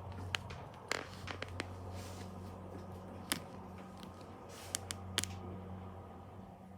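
Modernised car park lift car travelling: a steady low motor hum with scattered clicks and knocks, the hum dying away near the end as the car slows to a stop.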